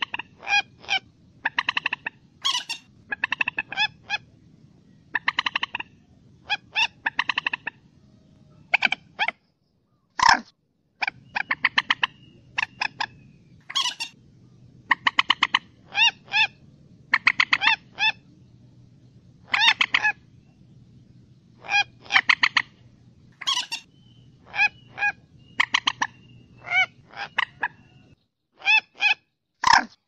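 Common moorhen calling over and over, in short notes and quick runs of several notes with brief pauses between them, over a faint low hum.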